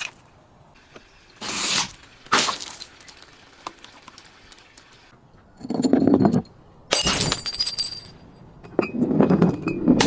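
Glass bottles breaking: about five separate bursts of shattering glass with clinking shards, separated by short quiet gaps.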